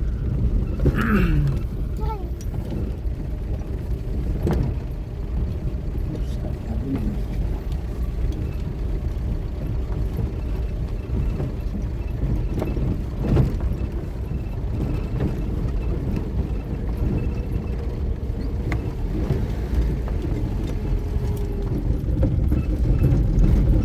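A car driving along with a steady engine and road rumble, and a few short knocks.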